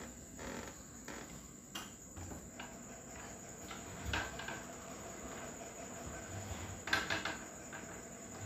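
Malabar spinach leaves rustling and crackling as they are picked over and sorted by hand, with a few sharper taps and snaps of stems, the loudest about seven seconds in. A steady high-pitched whine sounds underneath throughout.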